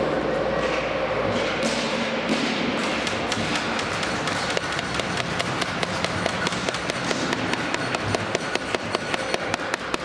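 A rapid run of sharp taps or knocks, starting about halfway in and quickening to roughly five a second near the end, over a steady din of background noise.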